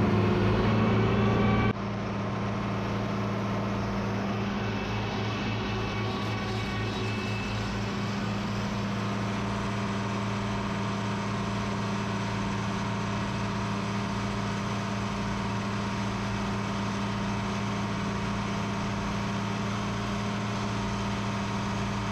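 Engine running steadily at constant speed, a low even drone. It drops a little in level about two seconds in, then holds steady.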